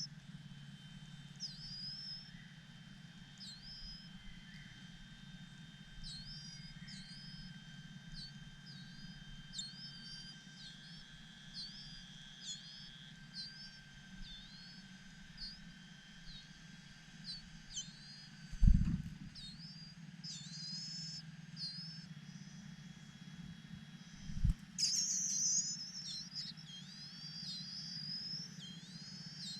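Large niltavas calling: short, high, hooked chirps repeated about once a second, building into a louder, denser run of calls near the end. Two dull thumps about two-thirds of the way in and a little later, over a steady low hum.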